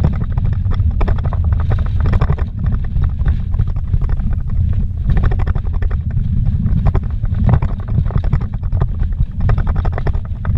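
A vehicle driven fast over a rough, rocky dirt road, heard from inside the cabin: a steady low rumble of engine and tyres, with frequent knocks and rattles as it jolts over stones and ruts.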